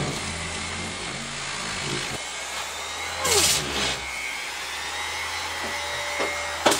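Random orbital sander running on a plywood board with 80-grit paper: a steady, noisy whir over a low hum, with a brief louder rasp about three seconds in and a sharp click near the end.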